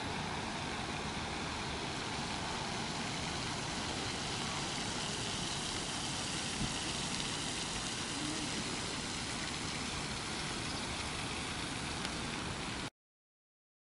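Steady outdoor background noise, an even hum like distant road traffic. It cuts off abruptly to silence about a second before the end.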